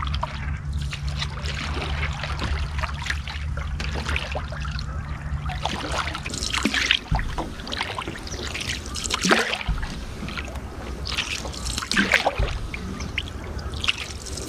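Canoe paddle strokes in calm water beside the hull: the blade dips and pulls, and water trickles and splashes off it. The strokes are loudest in the second half, about one every two and a half seconds. A low steady hum sits under the first half.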